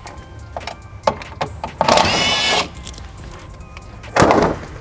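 A power tool runs in two short bursts, one about two seconds in and another near the end, with a high whine over a rattling noise, and scattered metallic clicks and knocks of hand work between the bursts.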